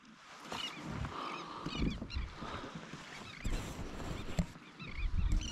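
Seabirds calling over a school of sardines: many short, overlapping cries over a low rumble.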